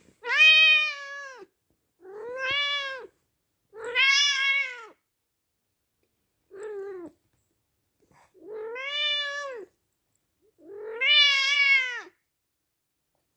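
White long-haired cat meowing six times with a wand toy's lure held in its teeth, the prey-holding call that the owner calls its 'bur bur'. The calls are drawn out, each rising then falling in pitch, with short silences between; the fourth is short and quieter.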